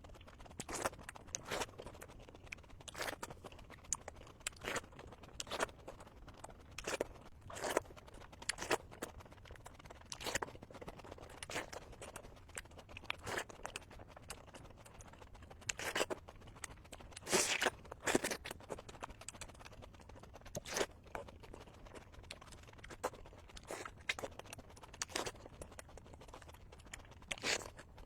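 Close-miked eating sounds: a string of short, sharp mouth smacks and clicks of chewing, roughly one a second, with a denser run a little past halfway.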